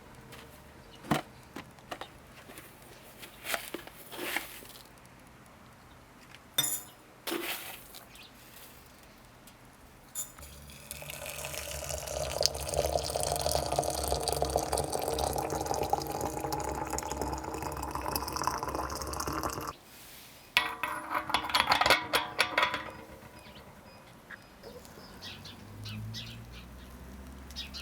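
Liquid being poured into a container for about ten seconds, its pitch rising slightly as it fills, with scattered knocks and clinks of utensils before and after.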